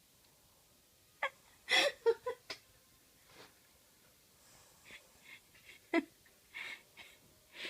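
A person's breathy, wheezy breaths and sniffs, in short scattered bursts with quiet gaps between them.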